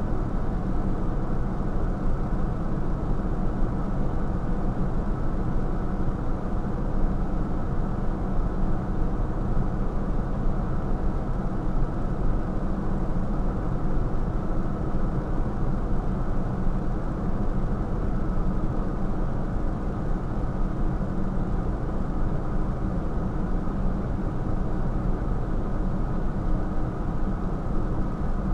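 Fire engine's diesel engine idling, a steady, unchanging drone.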